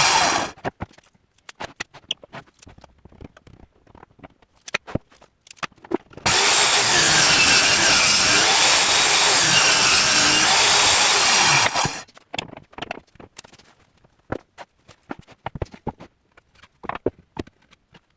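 A power tool working wood stops about half a second in, followed by scattered knocks and clicks of handling. It runs again for about six seconds from about six seconds in, its pitch wavering, then stops, and more knocks follow.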